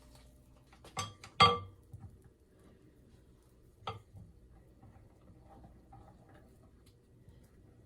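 Kitchen dishes clinking: a few sharp clinks that ring briefly, the loudest about one and a half seconds in and another near four seconds.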